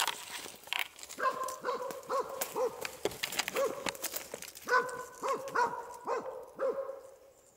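A hunting dog barking in two runs of short, evenly spaced barks, about five in each run. Sharp rustling and handling noise come mainly in the first second.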